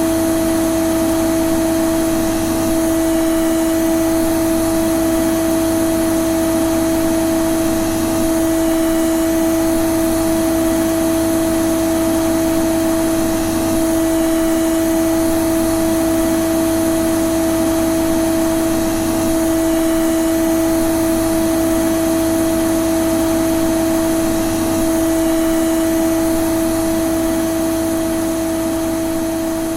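Vacuum cleaner running steadily: a constant motor hum on one pitch over the rush of air, easing slightly in loudness near the end.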